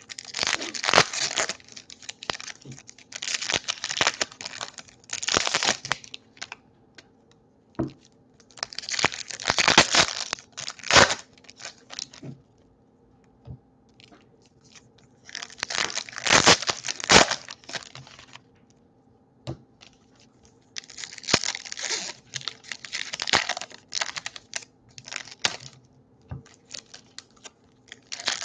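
Foil wrapper of a Topps baseball card pack being torn open and crinkled by hand, in bursts of tearing and crumpling a few seconds long with short pauses between.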